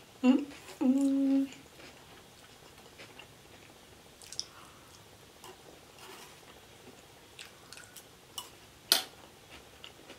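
Close-up eating sounds: quiet chewing with a short hummed 'mmm' just after the start, light clicks of a plastic fork, and one sharp clack just before 9 s as the fork is set down on the tray.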